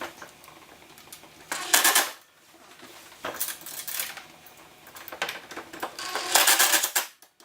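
Impact driver hammering in three short bursts, each under a second, as it drives screws home.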